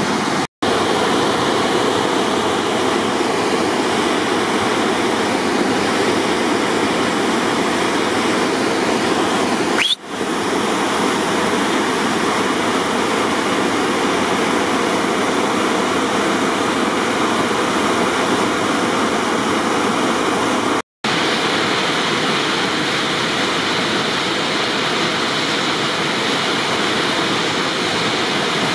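Whitewater rapid rushing steadily at a low-water flow. The sound breaks off briefly three times.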